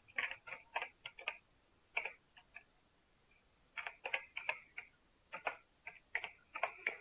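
Computer keyboard keys clicking as a word is typed, in irregular short runs of keystrokes with a pause of about a second near the middle.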